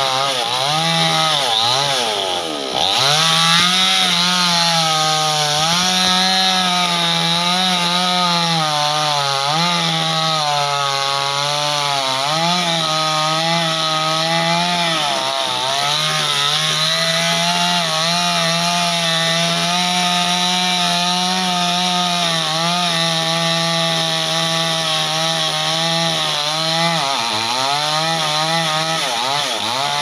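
Petrol chainsaw running at high throttle while cutting through the base of a mango tree trunk. The engine pitch sags several times as the chain bites into the wood, then climbs back.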